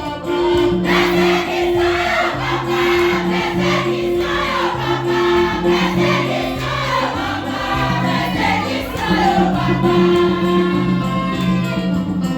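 Church choir singing with instrumental accompaniment: a held note and a stepping bass line under the voices.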